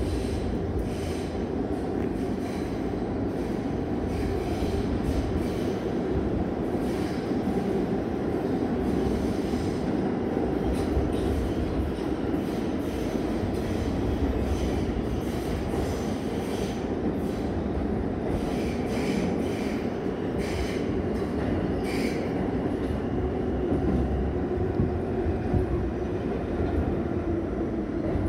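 New York City subway car running at speed, heard from inside the car: a steady low rumble of wheels on rail, with scattered sharp clicks throughout.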